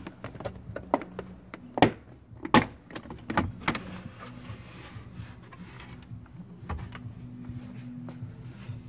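Plastic interior trim around a truck's kick panel and door sill being pulled loose and handled: a run of sharp clicks and knocks, the two loudest about two and two and a half seconds in, with a few more after.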